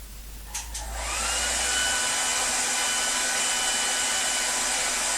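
Electric hair dryer switched on and blowing steadily, its motor whine rising in pitch about a second in as it spins up, then holding steady.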